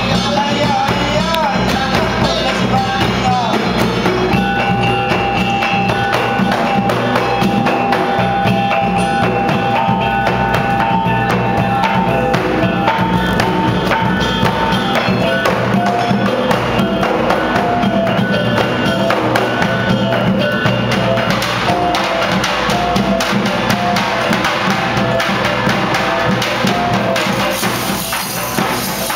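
Traditional Minangkabau plate-dance music: large drums beating under a melody of held notes, with dense quick clicks throughout, typical of the dancers' finger rings tapping the plates.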